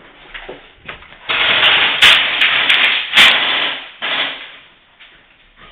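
Airsoft gun firing a rapid full-auto burst of about two and a half seconds, with a short second burst just after.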